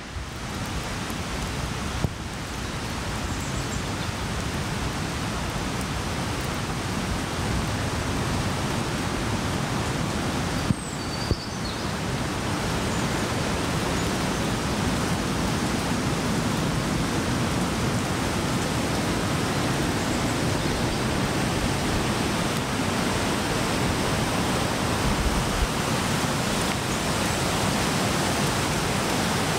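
Steady rushing of whitewater in a rocky creek, an even roar with no break.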